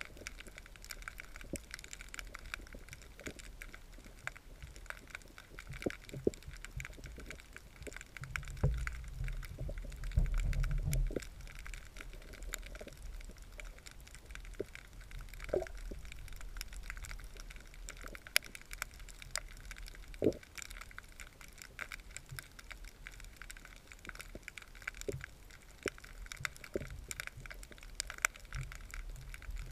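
Muffled underwater sound heard through a submerged camera: a steady hiss of moving water with scattered sharp clicks and crackles, and a low rumble for a couple of seconds about a third of the way in.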